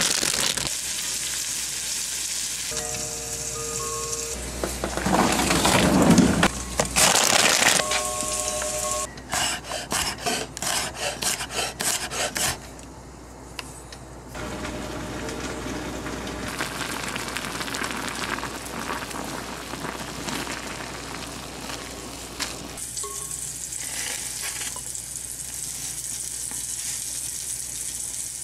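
Home cooking sounds: a loud rush of noise early on, then a knife chopping garlic on a wooden cutting board in quick, even strokes, two to three a second, for a few seconds. After that comes a steady sizzle of food frying in a pan.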